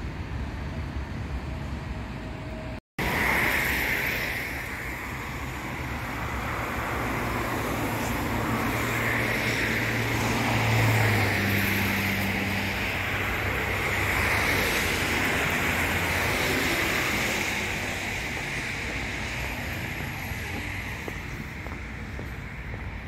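Steady outdoor city traffic noise: a broad hiss with a low engine drone underneath, which breaks off for a split second about three seconds in.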